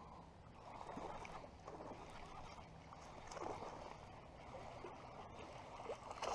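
A hooked bass splashing in the water as it is reeled in to the bank. The splashes come in irregular bursts, the loudest near the end as the fish reaches the bank.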